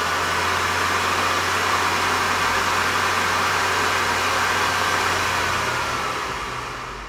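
Viessmann Vitodens 300 condensing-boiler combustion-air fan running at full speed, about 7000 rpm: a loud rush of air with a steady high whine. Near the end it slows, and the whine falls in pitch as it winds down. The fan has just been repaired and runs properly.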